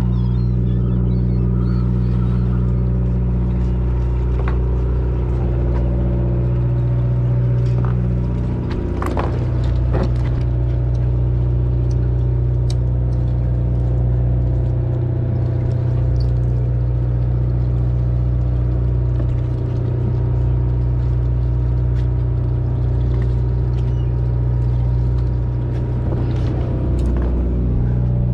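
Fishing boat's engine running with a steady low drone, with a couple of sharp knocks about nine and ten seconds in.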